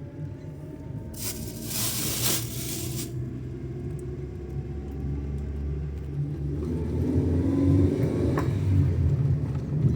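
A motor vehicle's engine running with a steady low rumble, as if riding along in it. A loud rush of hiss lasts about two seconds, starting about a second in.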